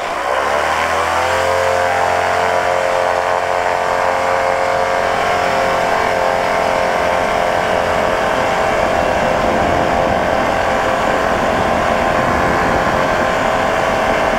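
FlyLight PeaBee flexwing microlight's engine and propeller opening up to full power for the takeoff run: the pitch rises over the first second or so, then holds steady and loud.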